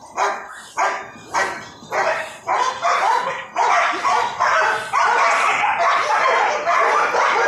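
A dog barking over and over, a bark about every half second at first, then barks running almost without a break for the last few seconds.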